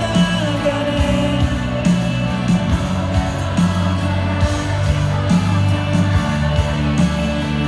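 Live pop-rock band music: drums, bass and guitars playing steadily under a sung vocal line, recorded from the audience.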